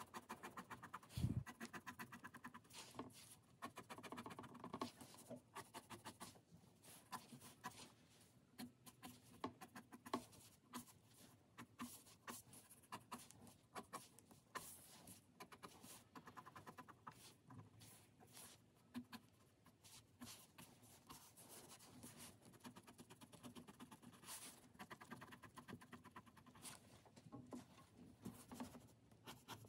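Faint scratching of a fine-liner pen nib on paper as quick, short hatching strokes are drawn one after another in runs. A soft low thump comes about a second in.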